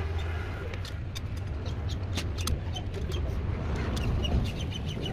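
Light metallic clicks and clinks, some briefly ringing, as a cast-iron exhaust manifold is set onto its studs on a truck cylinder head and a hand tool is worked on it, over a steady low hum.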